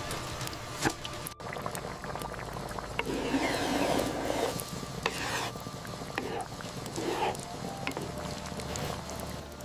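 Kitchen cooking sounds: a utensil stirring and scraping in cookware in several short spells, with scattered light clicks.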